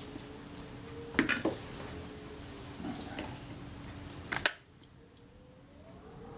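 Several small clinks and clatters of metal tools and small objects being handled and set down on a workbench, over a steady background hum that cuts off suddenly about four and a half seconds in.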